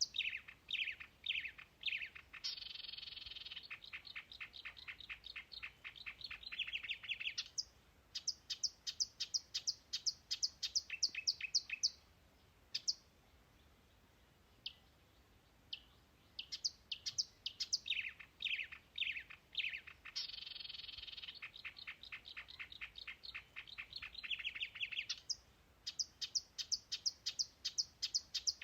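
A songbird singing long songs made of rapid, repeated chirps and fast trills. One song ends about twelve seconds in; after a pause with a few single notes, a near-identical song runs for about ten seconds, and another begins near the end.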